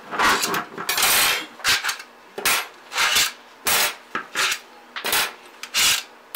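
Stainless steel skewers being pulled one after another out of the holes of a stainless steel strainer, a series of short metal-on-metal scrapes and rattles, about nine in all.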